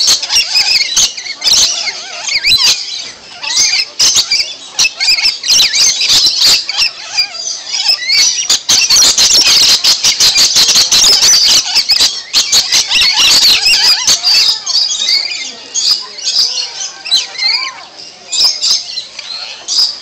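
Rainbow lorikeets fighting, screeching and squawking shrilly in a rapid, continuous stream of harsh calls that grows most intense in the middle.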